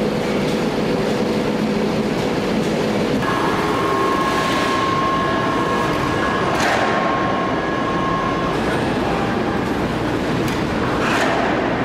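Steady din of heavy forge-shop machinery at a 12,000-ton forging press: a low machine hum for the first three seconds, then a higher whine from about three seconds in until past eight seconds, with a few short bursts of noise.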